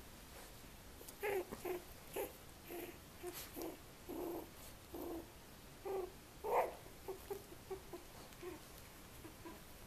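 Three-week-old Australian Terrier puppies whimpering and squeaking: a string of short calls, most of them between about one and seven seconds in, the loudest a little past the middle.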